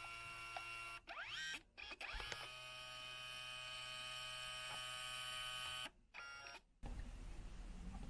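Kodak Mini Shot dye-sublimation photo printer printing a photo: a faint motor whine that starts and stops several times, rising in pitch as the motor speeds up about a second and two seconds in.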